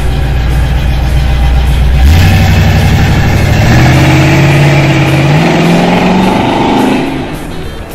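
The engine of a late-1970s square-body full-size SUV runs at a steady low note, then revs up about two seconds in as the truck accelerates away, climbing in pitch for several seconds before fading near the end as it drives off.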